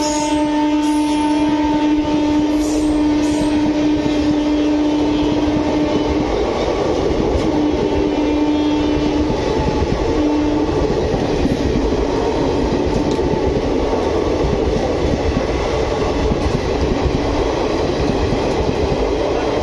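Express passenger coaches passing at about 120 km/h, wheels running on the rails with a steady rumble and rattle. Over it, the locomotive's horn holds one long note that ends about six seconds in, then sounds twice more, briefly.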